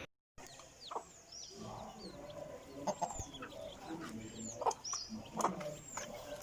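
Chickens clucking in short, scattered calls, with many brief high chirps over them. The audio drops out for a moment at the start.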